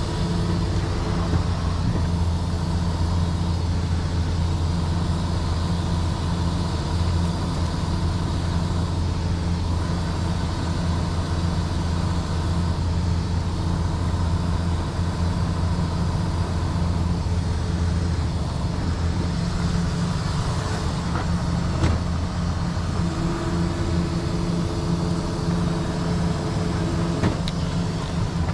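Heavy diesel engine of a Western Star 9055XL rotator wrecker running steadily at a constant speed. A higher steady tone rises over it briefly at the start and again for a few seconds near the end.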